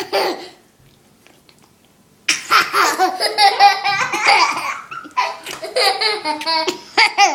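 Laughter: after a short quiet spell, fits of laughing start about two seconds in and carry on in quick pulses.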